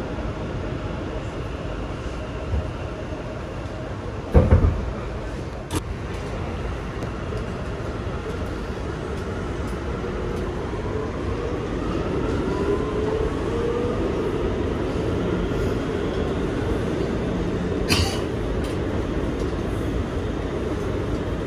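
Kawasaki R211T subway car running between stations, heard from inside: a steady rumble of wheels on rail, with a heavy clunk about four seconds in and sharp clicks at about six seconds and near the end. About halfway through, a whine rises in pitch.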